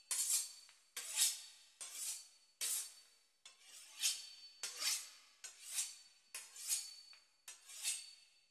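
A knife sawing back and forth through the crisp puff-pastry crust of a beef Wellington. About a dozen short, crisp scraping strokes come a little over one a second, each starting sharply and dying away quickly.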